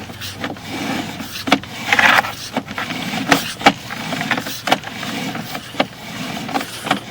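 Irregular clicks and knocks over a rough scraping rumble: a sewer inspection camera head and its push cable being fed along a cast iron sewer line.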